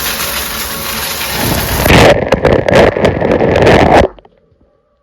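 Shower water spraying hard from a Brilliant Ideas color-changing LED shower head. It grows louder and rougher about two seconds in, then stops abruptly about four seconds in.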